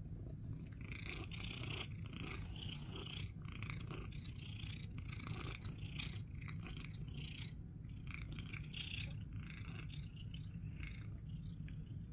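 Long-haired cat purring steadily while being petted, with short bursts of soft rustling as its fur rubs against the hand.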